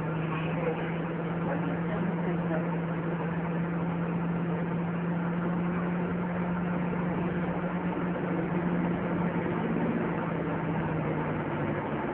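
Scania N230UD double-decker bus engine running steadily, heard from inside the passenger saloon as a constant low hum over road and cabin noise. The hum shifts a little in pitch near the end.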